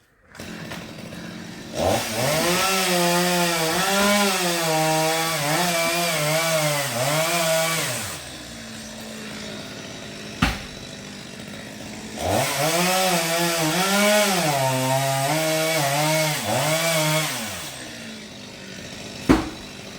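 Two-stroke chainsaw cutting into coconut palm wood in two bursts of about six seconds each. The engine's pitch wavers up and down under load, and it drops to a quieter idle between the cuts. A sharp knock comes about ten seconds in and another near the end.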